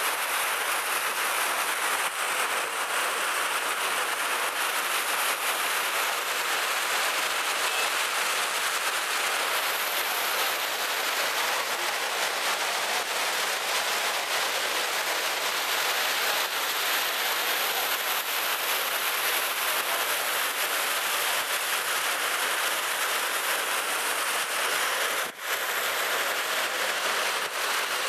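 Steady rush of the 9/11 Memorial's reflecting-pool waterfalls, water pouring down the pool walls in an even, unbroken hiss, with one brief drop-out near the end.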